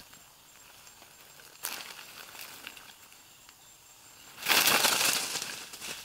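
Monitor lizard dashing off through dry leaf litter: a loud crackling rush of leaves about four and a half seconds in, lasting about a second, after a short rustle of leaves under two seconds in.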